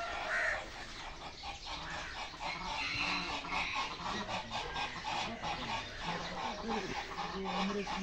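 Many penned fowl, chickens and ducks among them, calling over one another in a continuous jumble of short calls.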